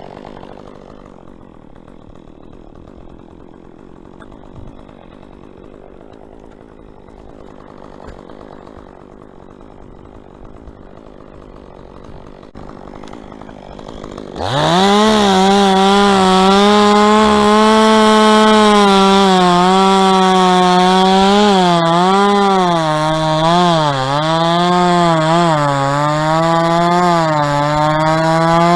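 Two-stroke chainsaw: quiet for about the first half, then about halfway through it suddenly opens up to full throttle, a loud high-pitched engine note that dips and recovers again and again as the chain works under load, cutting into dead palm wood.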